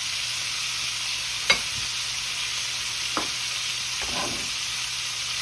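Bone-in pork shoulder roast searing in hot oil in a skillet, sizzling steadily, with a sharp click about one and a half seconds in and a smaller one near three seconds.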